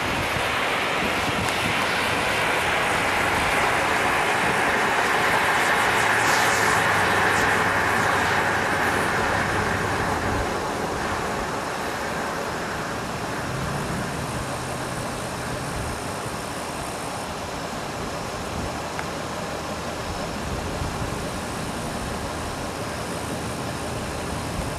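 Homemade potassium nitrate and sugar smoke bomb burning with a steady rushing hiss. The hiss is loudest for the first ten seconds or so, then drops to a quieter, even hiss as the charge burns down.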